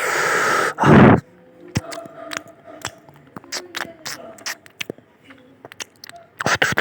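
A person eating with the mouth close to the microphone: two loud noisy bursts in the first second, then a run of small, uneven clicks and smacks of chewing, and two more loud bursts near the end.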